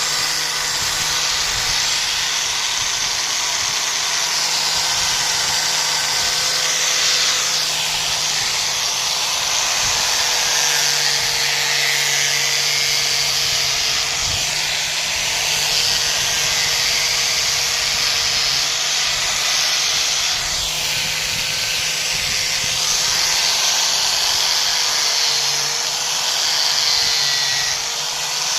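Power grinder running continuously as it grinds wood: a steady hissing, rasping noise over a constant motor whine that wavers slightly in pitch.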